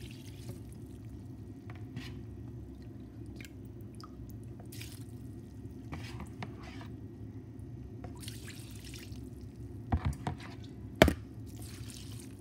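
Hot broth poured from a cup in several short pours onto rice and green fava beans in a cooking pot, over a steady low hum. A few sharp knocks near the end, the loudest about eleven seconds in.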